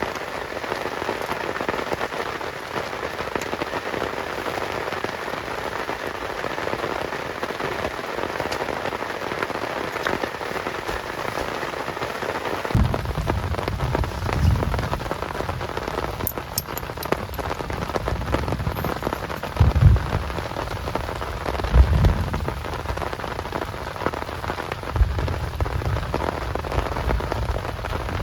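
Heavy rain falling steadily. About halfway through, a low rumbling comes in and swells several times.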